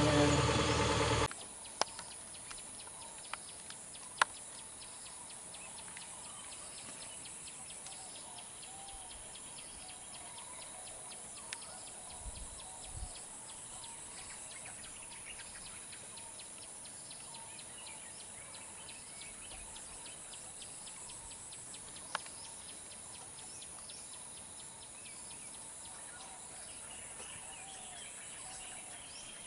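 Birds chirping and calling over a steady outdoor background hiss, with a few sharp clicks. A voice and an idling engine are heard for about the first second, then cut off abruptly.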